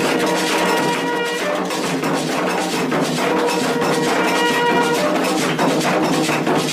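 Bugle (clarim) playing held notes over a steady, driving rhythm of drums and percussion.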